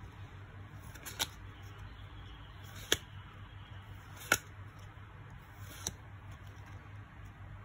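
Topps Match Attax football trading cards being flipped through by hand, with a card snapping against the stack four times, a second or so apart, over a low steady hum.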